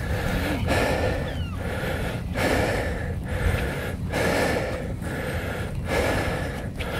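A person breathing hard close to the microphone, with quick, even breaths in and out, each lasting just under a second.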